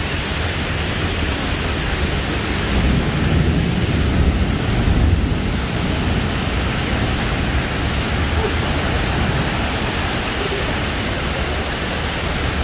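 Heavy tropical rain pouring down onto the street and pavement, a loud steady hiss. A deeper rumble swells about three to five seconds in.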